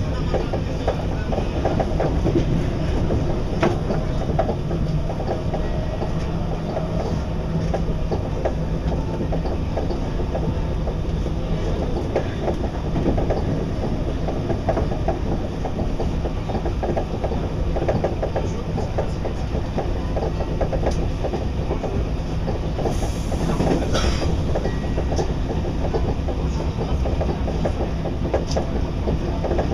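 Paris RER commuter train running on the rails: a steady low rumble with scattered clicks and knocks from the wheels and carriages, and a short high hiss about three-quarters of the way through.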